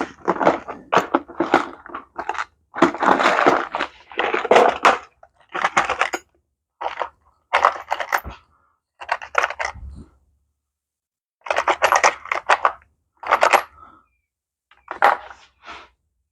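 Small metal parts and tools clinking, rattling and knocking in short separate bursts of clatter with brief pauses between them, as motorcycle turn-signal bracket hardware is handled and fitted by hand.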